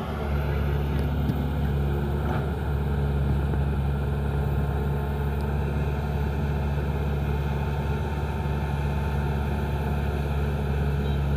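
Excavator's diesel engine running steadily, a continuous low drone without clear revving.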